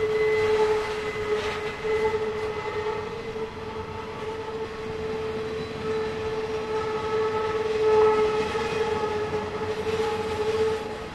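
Intermodal freight cars carrying highway trailers rolling past, their wheels squealing in a steady high tone that wavers in loudness over the rumble of the train. The wheels are grinding through the tight curve of the loop.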